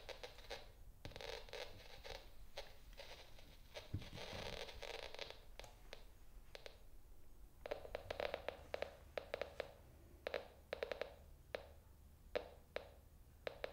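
Termite Tracker acoustic-emission detector clicking irregularly as it picks up live termite activity inside the wood. The clicks come in clusters and grow more frequent in the second half. Soft handling and scraping noise comes first, as the unit is set up.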